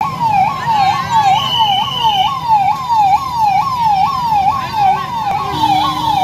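Ambulance siren sounding a fast yelp: its pitch jumps up and slides back down about three times a second, without a break.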